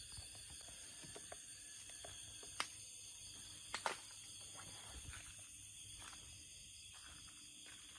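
Faint night ambience: a steady high hiss with two short sharp clicks, one about two and a half seconds in and another near four seconds.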